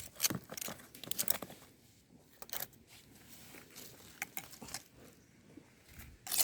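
Dry forest leaf litter crackling and rustling in short, irregular crunches, with a louder crunch near the end.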